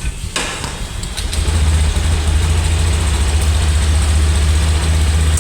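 Motorcycle engine starting, catching about a second in and then idling steadily. It runs again now that the blown fuse has been replaced.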